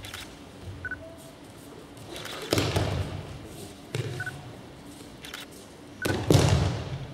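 Two heavy thuds of a thrown aikido partner's breakfall landing on the tatami mat, about two and a half seconds in and again near the end, each ringing on in the large hall.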